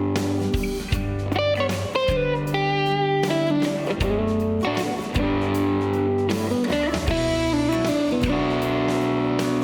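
Background music: a guitar-led instrumental with electric guitar and a bass line, notes bending in pitch.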